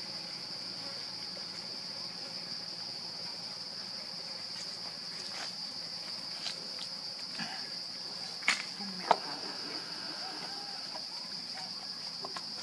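Steady, high-pitched drone of insects, unbroken. A few faint clicks sit over it, and two sharper knocks come about two-thirds of the way through.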